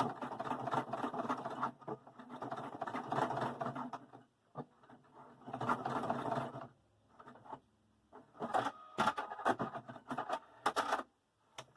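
Sewing machine stitching in three short runs, back-tacking to lock the end of a seam through a zipper tape, followed by a scatter of clicks and rustles.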